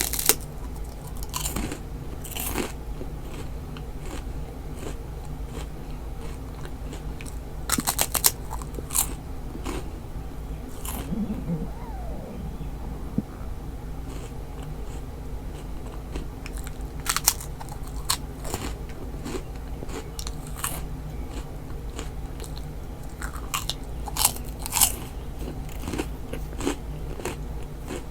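Stomach growling: irregular clicks and crackling gurgles, with a short wavering rumble near the middle, over a steady low hum.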